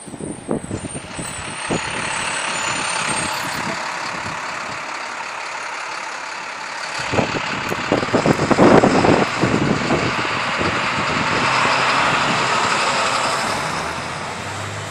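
A heavy vehicle passing on a snowy street: its noise swells, peaks twice, then eases off, over low thumps of wind on the microphone.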